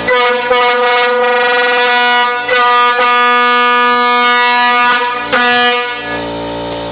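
Multi-chime air horn sounding a loud chord in several long blasts with brief breaks. It cuts off about six seconds in, leaving a steady machine hum.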